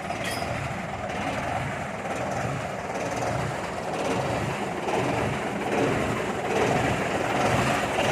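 A truck running with a steady rumble and rattle that grows slowly louder.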